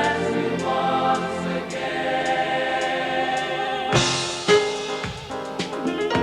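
Music: held, choir-like sung notes over instruments, then a cymbal crash about four seconds in, followed by sharp drum hits.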